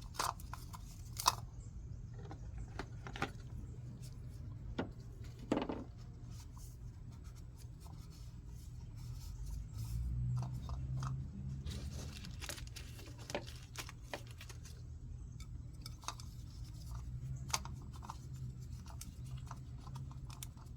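Scattered small clicks, taps and scrapes of hands working on an oil filter housing cap, swapping the old rubber O-rings for new ones, over a steady low hum.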